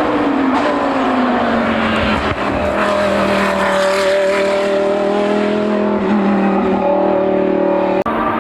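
Hillclimb race car engine at full throttle going by: its note drops in pitch over the first two seconds, then holds steady for several seconds before cutting off suddenly near the end.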